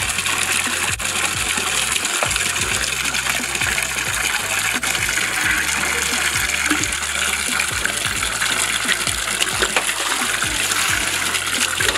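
Water sloshing and splashing as cut fish pieces are rubbed clean by hand in a clay pot of water, with the wash water poured out of the pot.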